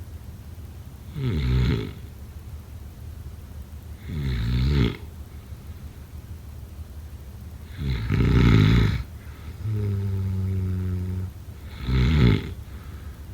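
A person snoring, about one rough, rattling snore every four seconds, four in all. After the third snore comes a steady low hum lasting about a second and a half.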